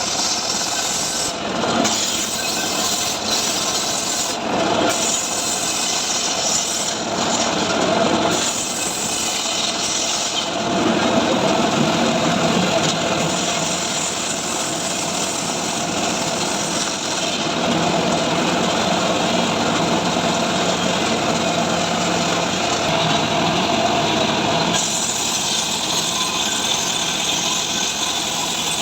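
Stihl MS 382 two-stroke chainsaw running under load, ripping lengthwise through dry mahogany in a homemade chainsaw-mill frame, with the engine note shifting as the cut goes on.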